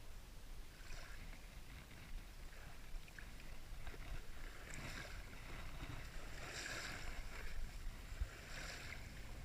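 Outdoor wind buffeting the microphone, a steady low rumble with soft, uneven gusts of hiss.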